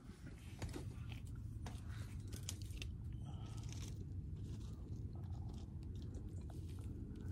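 People eating, with chewing and crunching and scattered light clicks over a low steady rumble.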